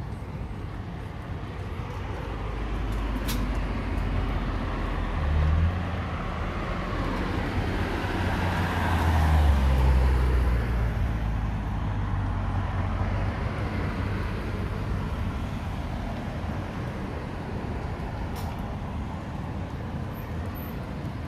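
Road traffic: a heavy vehicle's engine passes, building to its loudest about nine to ten seconds in and then fading back into the steady hum of the street.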